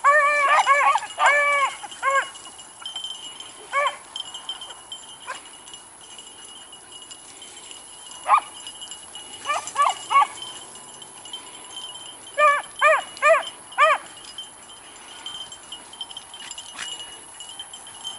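Beagles baying as they run a rabbit's trail: short, pitched hound cries coming in bursts, thick at first, then single calls and small clusters of three or four.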